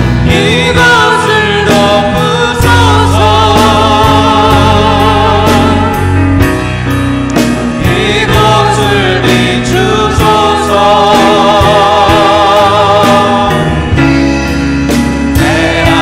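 Live worship band playing the chorus of a Korean praise song: a male lead singer with vibrato over grand piano, guitar and a steady drum beat, with deep bass notes coming in about two and a half seconds in.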